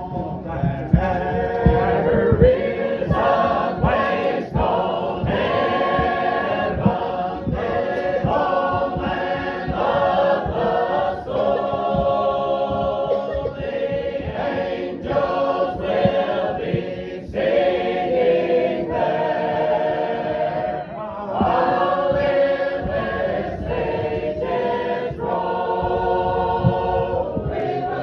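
Congregation singing a hymn together, many voices holding long sung notes.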